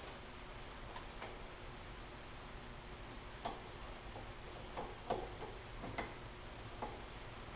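Irregular light clicks and taps, about eight over a few seconds and some in quick pairs, from hand work with small metal parts, over a faint steady hum.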